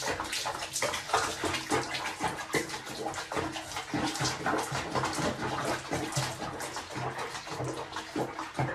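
Water sloshing and bubbling in a small basin around a cat being bathed, a continuous crackly splashing.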